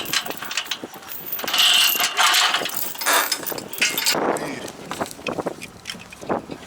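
Irregular mechanical clattering and clicking, like a ratchet or gears working.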